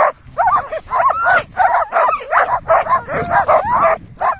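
Team of sled dogs yipping and whining in a rapid, unbroken string of short, high calls, several a second.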